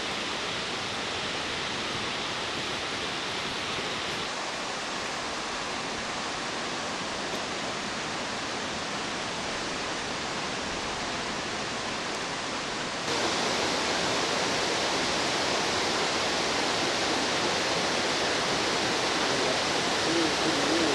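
Steady rushing of water, an even hiss with no rhythm, that becomes louder and brighter about two-thirds of the way through.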